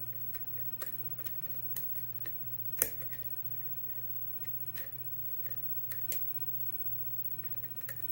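Lock pick working the pins of a 6-pin LSDA kik lock cylinder under tension: scattered small sharp clicks, one much louder about three seconds in, over a low steady hum.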